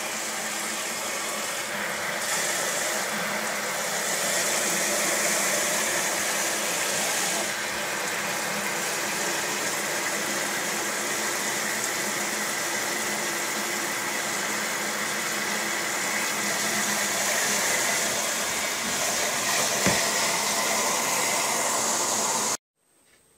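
Water running steadily from a tap into the plastic wash tub of a portable twin-tub washing machine as it is filled for a wash. It cuts off suddenly near the end.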